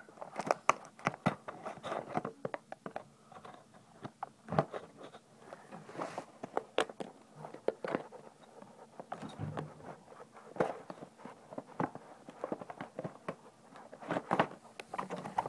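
Irregular clicks, scrapes and crinkles of toy packaging being handled as small toy figures are worked free from it.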